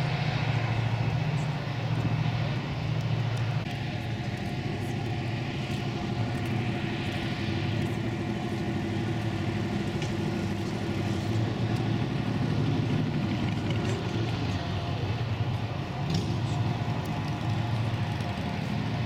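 Large river towboat's diesel engines running with a steady low rumble, laboring under the load of a heavy barge tow pushing upstream.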